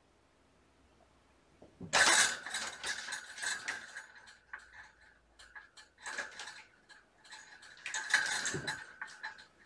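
Plastic ball rattling and whirring around a ball-in-track cat toy as a kitten bats it, in two bursts of rapid clicking, one about two seconds in and another near the end.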